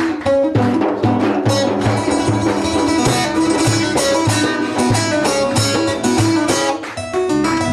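Bağlama (long-necked Turkish saz) played in selpe style, fingers striking the strings directly, running a quick folk melody over a steady low drum beat of about two beats a second.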